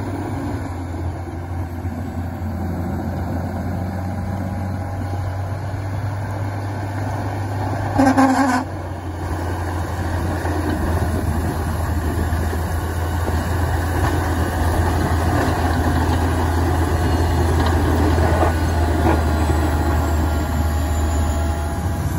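John Deere 872GP motor grader's diesel engine running steadily as it plows snow, growing louder after about ten seconds. A short, loud blast about eight seconds in stands out above the engine.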